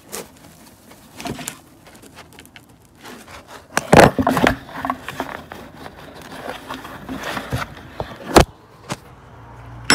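Hands rummaging in a cardboard parts box for a handlebar riser clamp, with scrapes and clicks of cardboard and parts. Two loud knocks stand out, one about four seconds in and one just past eight seconds.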